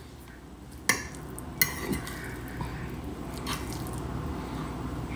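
Fork and knife clicking sharply against a plate twice, about a second in and half a second later, while cutting into a burger, followed by softer cutting and scraping.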